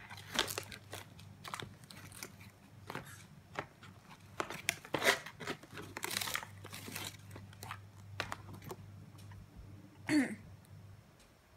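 Crisp crunching and chewing of dried broccoli florets in the mouth, a string of irregular crunches.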